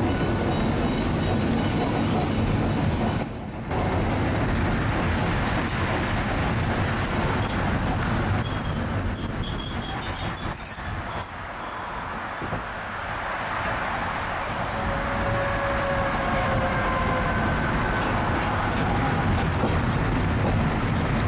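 Vintage electric tram running along its track, with a steady rumble of wheels on rails. A high wheel squeal sounds near the middle, and a whining tone rises in the second half.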